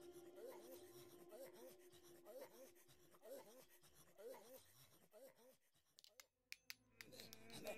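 Faint background music under the opening titles: a held low tone with short rising-and-falling notes repeating about once a second, fading out about five and a half seconds in. After a moment of near silence with a few faint clicks, another quiet piece with sustained tones begins about seven seconds in.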